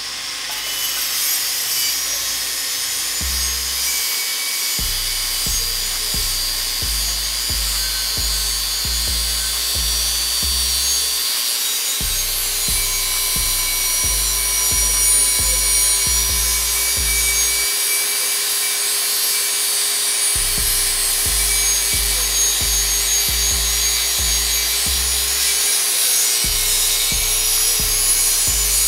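Electric angle grinder running under load, its abrasive wheel grinding slowly around the rim of a carbon steel skillet to put a bevel on the edge: a steady whine with a grinding hiss.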